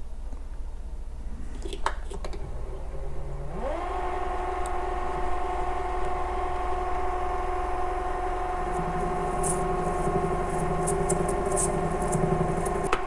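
Metal lathe motor spinning up about a third of the way in to a steady whine, then winding down at the very end, while a carbide insert cuts a chamfer on a knurled brass handle; scattered high ticks of the cut come in over the second half.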